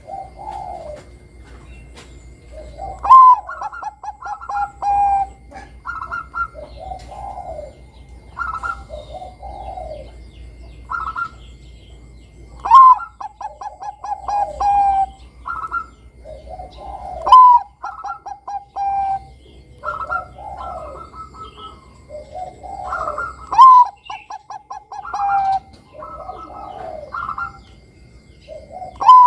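Bangkok-type zebra dove (perkutut) singing its cooing song. Each phrase starts with a loud rising note, runs into a quick string of short staccato coos and ends on a few held coos, repeated several times with softer coos in between.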